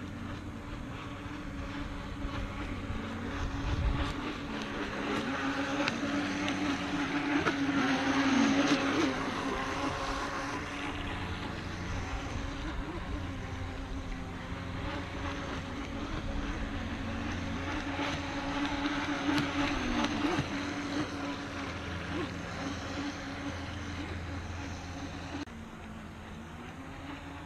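Radio-controlled model boat's motor running out on the water, its tone bending up and down in pitch as it throttles and turns. It swells loudest about eight seconds in and again around twenty seconds.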